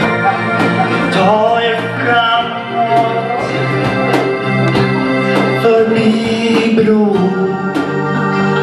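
Live band: a singer performing an 1980s-style pop song over sustained keyboard chords and a steady drum beat of about two hits a second.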